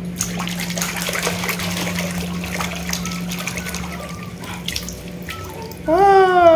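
Muddy water sloshing and splashing in a plastic basin as a hand scrubs a toy motorbike in it. A voice comes in near the end.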